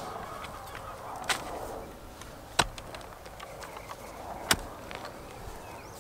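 Steel shovel blade struck down into hard clay soil while digging a hole, three sharp strikes over about three seconds, the middle one the loudest.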